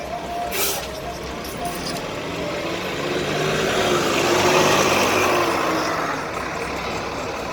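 A heavy road vehicle passes close by, its engine and tyre noise swelling over a couple of seconds and then fading away. A sharp click sounds about half a second in.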